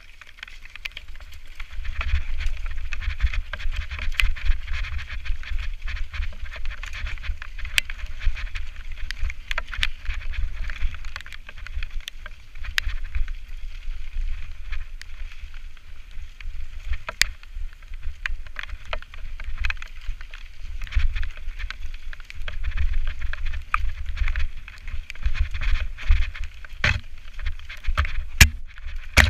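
Mountain bike riding fast down a wet, stony dirt trail, heard from a camera mounted on the rider or bike: steady tyre noise on dirt and stones, frequent sharp knocks and rattles from the bike, and wind rumbling on the microphone. The knocks are loudest near the end, as the bike crosses rock slabs.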